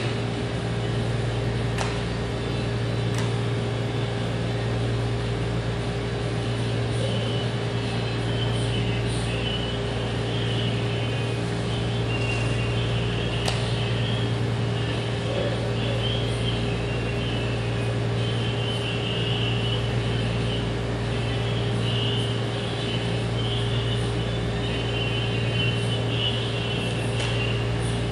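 Steady mechanical hum of room ventilation with a constant low tone, and a few sharp clicks, typical of chess pieces being set down on the board.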